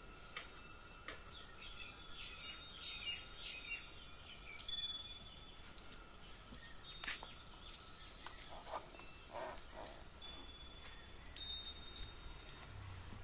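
Light clinking and jingling of a horse's harness fittings as the horse shifts and the harness is adjusted, with short bell-like rings and sharp clicks scattered throughout.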